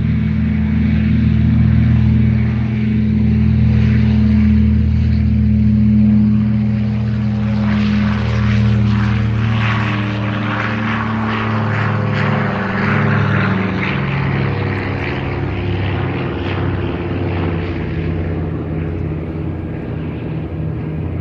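Douglas DC-3's twin radial piston engines and propellers droning as the plane passes. A steady low engine tone, with a hissier edge in the middle, slowly fading over the second half.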